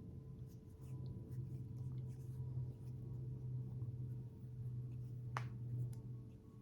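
Faint handling of cosmetics: light rubbing and small ticks, with one sharp click about five seconds in, over a steady low hum.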